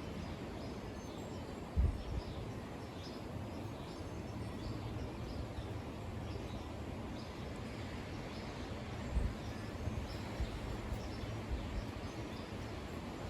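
Strong wind gusting over the microphone, a low rumbling buffet that swells hardest about two seconds in and again around nine seconds. Small birds chirp faintly throughout.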